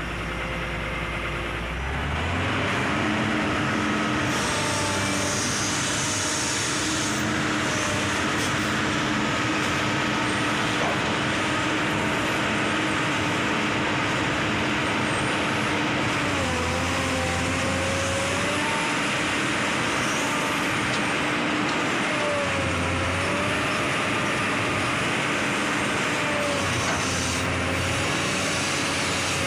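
Komatsu PC200 excavator's diesel engine stepping up from idle to high revs about two seconds in, then running under load. A whine from the hydraulics rises and falls as the machine works.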